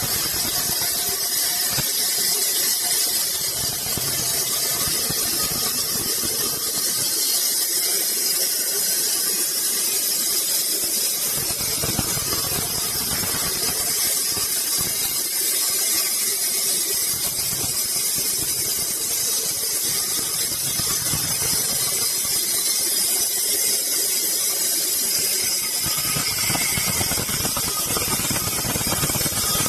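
Sawmill saw cutting through wood, a steady high-pitched hiss and squeal with a low rumble that rises and falls.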